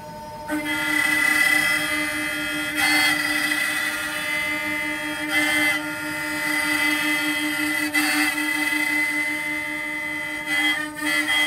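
Woodmaster 4-axis, 16-spindle CNC wood router running, its spindles whining steadily as the cutters shape wooden chair and table legs. A louder rasp of cutting surges about every two and a half seconds.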